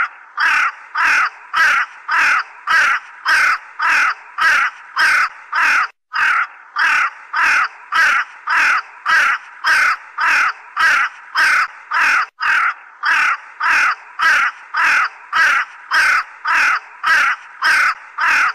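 Crow cawing over and over at a steady pace, nearly two caws a second, with two brief breaks about six and twelve seconds in.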